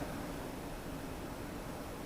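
Low steady hiss with no distinct events: room tone.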